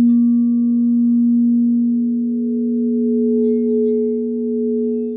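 Crystal singing bowls ringing in long sustained tones, a low note with a higher note above it that swells up about two seconds in, the sound slowly wavering in loudness.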